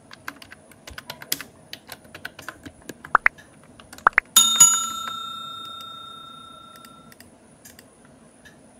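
Computer keyboard typing, a run of light key clicks. About four seconds in, a single bell ding rings out and slowly fades over a couple of seconds: a subscribe-button notification-bell sound effect.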